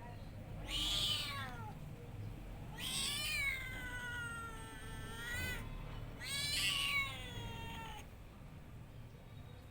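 A cat meowing three times, the middle meow long and drawn out, about three seconds, sliding down in pitch.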